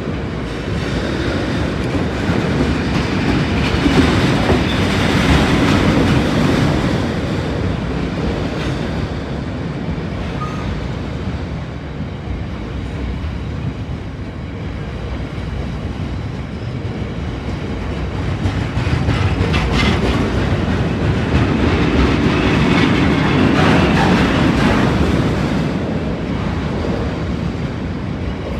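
A long freight train of oil tank wagons rolling past over the level crossing, wheels clattering over the rail joints in a continuous rumble that swells louder twice.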